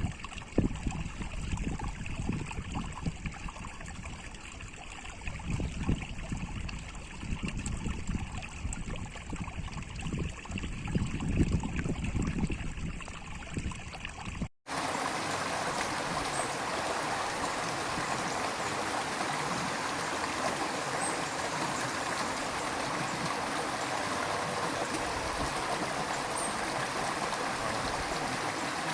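River water running. For the first half it is a deeper, uneven rumble; after a sudden cut a little past halfway it becomes a steady, even rushing of water.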